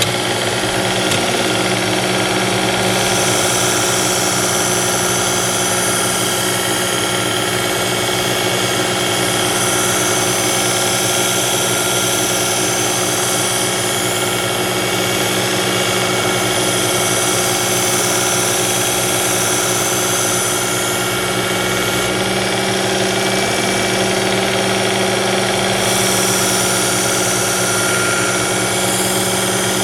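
Work Sharp Ken Onion Edition electric belt sharpener running steadily on its fine X4 abrasive belt: a constant motor hum, with a higher grinding hiss that changes every few seconds as the knife blade is drawn across the belt in passes.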